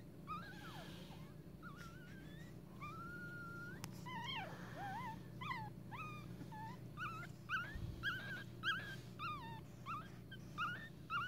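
Newborn Pekingese puppies squeaking and whimpering in thin, high, gliding calls. A few long drawn-out calls come first, then quick short squeaks one after another from about seven seconds in.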